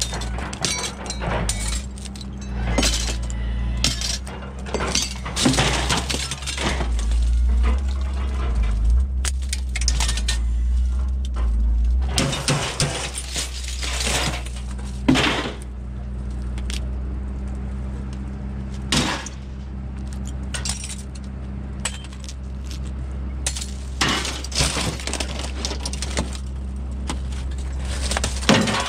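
Aluminum window frames with broken glass panes being pulled out and tossed, glass shattering and clinking and the metal frames clattering in many irregular crashes. A steady low hum runs underneath.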